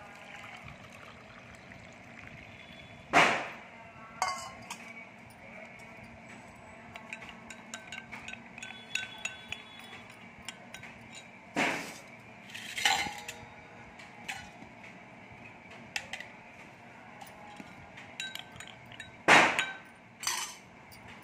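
A spoon stirring a drink in a drinking glass, clinking sharply against the glass now and then: a handful of separate clinks, the loudest about three seconds in and again near the end.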